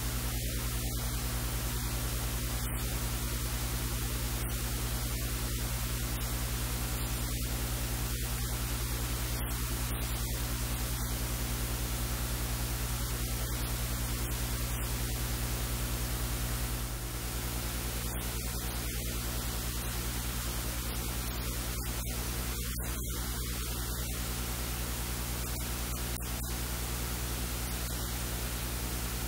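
Steady hiss of electrical noise with a low mains hum, covering the whole sound track; no speech can be made out. The low hum shifts slightly about two-thirds of the way through.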